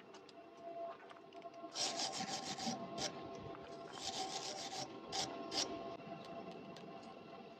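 A hand tool scraping over steel in quick back-and-forth strokes: two runs of about a second each, then two single short strokes.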